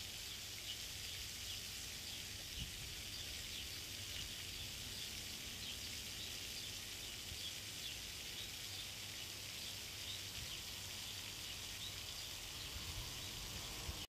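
Steady high-pitched insect chorus, an even hiss with faint repeated ticks over it.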